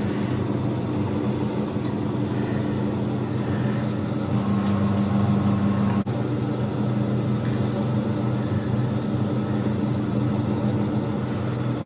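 Steady hum and rush of an auger-fed eco-pea coal boiler's burner blower running, with the fire burning in the firebox. A single brief click about halfway through.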